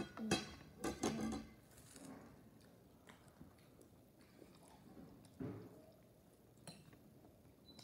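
A boy eating a bite of French toast off a metal fork: a few short clicks and smacks in the first second or so, then faint chewing with a couple of small clicks later on.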